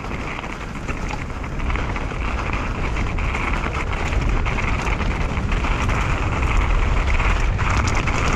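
Wind rushing over the microphone and mountain bike tyres rolling over dirt and gravel at speed, growing louder as the bike picks up pace, with scattered clicks and rattles from stones.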